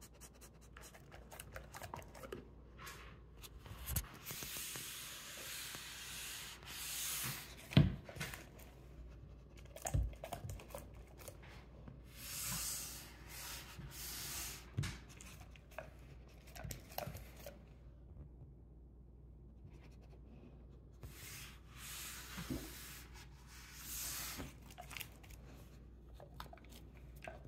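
A dog snuffling and licking at a potato chip on a wooden tabletop, its nose and lips rubbing over the wood in bouts of a second or two. Scattered sharp knocks of mouth or chin against the table, the loudest about eight seconds in.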